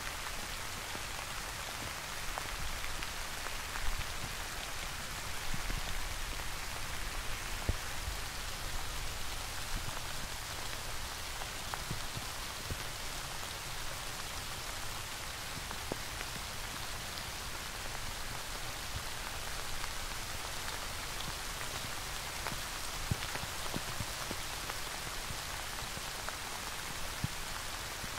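Steady rain falling: an even hiss with louder single drops ticking now and then.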